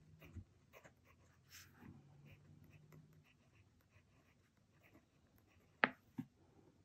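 Faint scratching of a Jinhao 82 fountain pen's steel nib writing on notebook paper; the nib writes a little dry, which the writer puts down to tines set too tight. Two sharp clicks follow close together about six seconds in.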